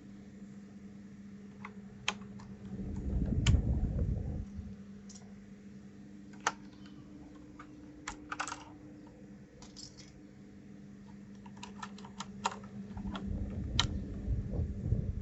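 Sparse, irregular clicks of keys on a 1st Player DK 5.0 mechanical keyboard as keys are pressed and keycaps handled, over a faint steady hum. Two louder spells of low rumbling handling noise come about three seconds in and again near the end.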